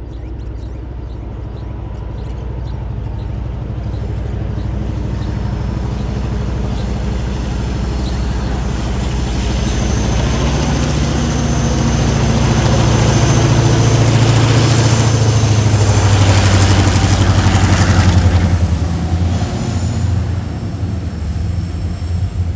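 Diesel freight locomotive approaching and passing close beneath. Its engine drone grows steadily louder, peaks as it goes under, then gives way to the rolling rumble of loaded log wagons on the rails.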